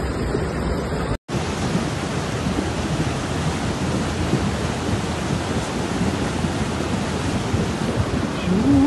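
Muddy floodwater rushing through a street as a fast torrent: a steady, loud rush of water, broken by a brief dropout about a second in.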